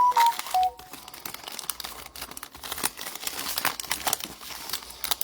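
Trading card pack wrappers being crinkled and torn open by hand, a dense crackling. At the very start, a short electronic chime of a few stepped notes ends.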